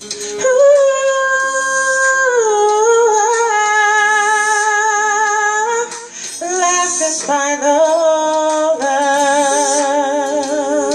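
A woman singing long held notes with vibrato, in two phrases with a short break about six seconds in.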